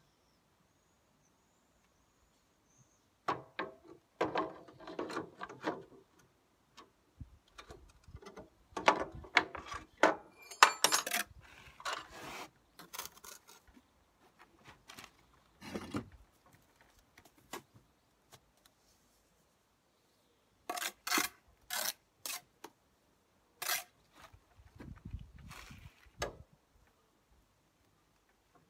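Bricklaying handwork: a steel trowel scraping and tapping on bricks and mortar, and a spirit level set against the brickwork. Heard as scattered scrapes, clicks and knocks with quiet pauses in between.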